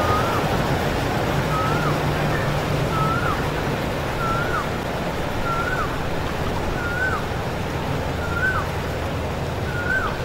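Floodwater rushing across a road as a heavy tanker truck drives through it, with the truck's engine as a low steady hum under the water noise. A bird repeats a short rising-then-falling whistle about once every second and a bit.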